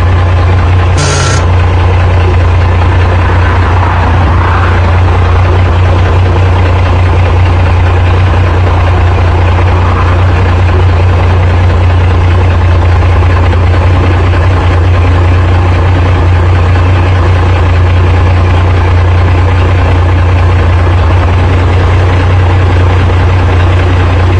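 BMC TM-140 truck's diesel engine idling steadily with a deep, even low rumble.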